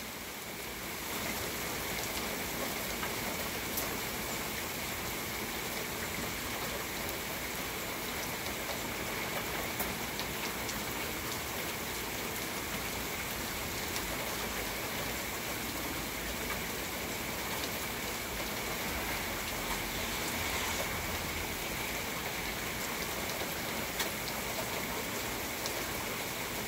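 Steady rain falling, an even hiss with a few faint drip ticks scattered through it.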